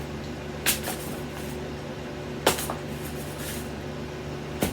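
Three short clicks or taps of small objects being handled, about a second in, halfway through and at the very end, over a steady low room hum.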